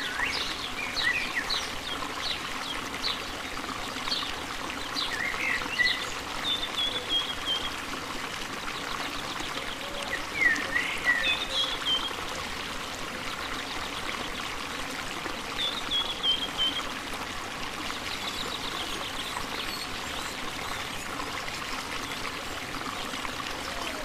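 River water running steadily over shallow rapids, with birds calling over it: scattered short chirps and whistles, and three brief descending phrases, fewer toward the end.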